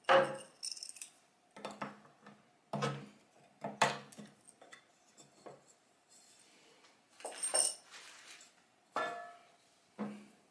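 Metal tin of Annie Sloan clear chalk paint wax being handled on a tabletop: the lid is worked off and the tin and lid are set down, giving about eight separate metallic clinks and knocks with short pauses between.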